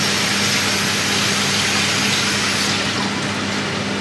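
Kitchen tap running into the sink, a steady rush of water that thins out near the end, over the steady hum of an extractor fan.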